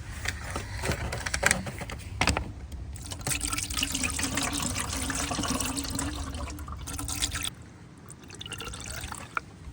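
De-icer windshield washer fluid being poured into a car's washer reservoir, a steady pour that stops abruptly about three-quarters of the way through as the reservoir fills to the rim. A few knocks from handling the container and cap come first.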